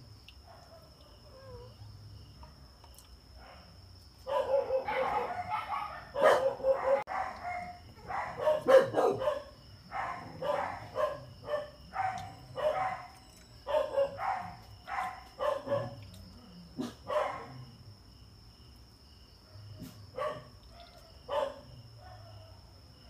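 A dog barking repeatedly, a quick run of barks about two a second that starts about four seconds in and stops after about thirteen seconds, then two more barks near the end.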